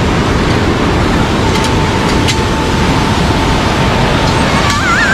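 Steady, loud rush of a white-water mountain river tumbling over boulders. Just before the end a wavering melody of background music comes in.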